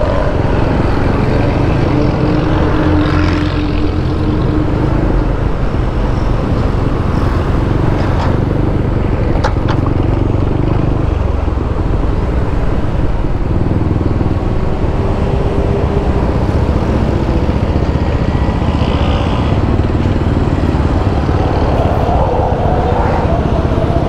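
Motorcycle engine running on the move, under a steady rush of wind noise on the microphone, the engine pitch shifting a little as the speed changes.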